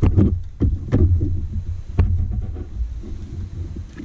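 Handling noise from wiring being worked by hand: low thuds and rumbling with a few sharp clicks, loudest in the first second and again at about two seconds, then fading.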